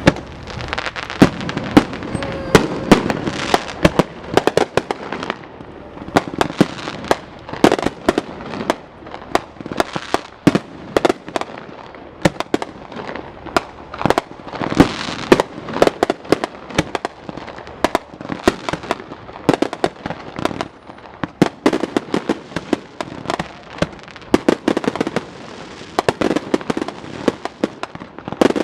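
Fireworks going off in a rapid, continuous run of sharp bangs and crackles, many to the second.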